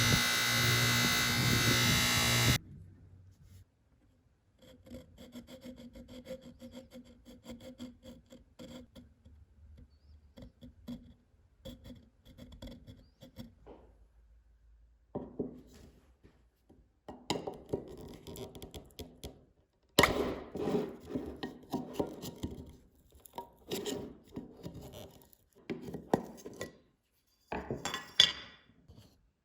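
A power tool runs steadily and cuts off abruptly a couple of seconds in. It is followed by irregular runs of hand rubbing and scraping strokes on metal or wood, which grow busier and louder in the second half.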